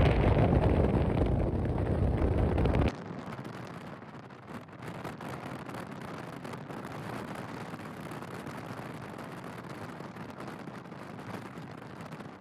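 Air rushing and buffeting against the microphone on a moving ride, loud and deep, cutting off abruptly about three seconds in to a fainter, steady rushing noise.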